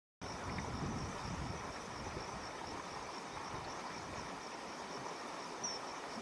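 Outdoor ambience that cuts in abruptly just after the start: insects chirping in an even, high pulsing trill over a low, steady rumble.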